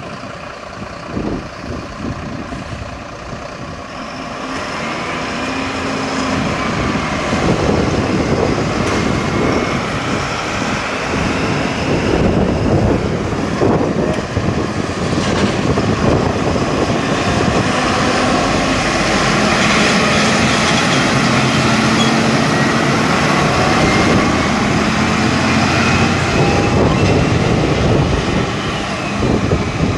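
Fire-brigade trucks driving past under emergency signals. Engine and road noise grows loud about four seconds in and stays loud until near the end, with faint siren tones gliding above it.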